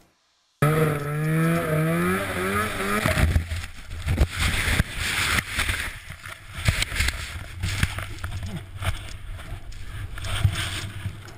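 Helmet-camera audio of a snowmobile in an avalanche. After a brief silence, the snowmobile engine revs with a wavering pitch for about two seconds. It then gives way to rough rushing noise full of thumps and knocks as the rider is carried through the snow.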